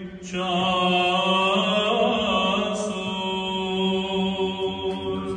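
Orthodox Byzantine-style liturgical chant: voices sing a moving melody over a steady held drone note (the ison). The singing pauses briefly at the start and then resumes.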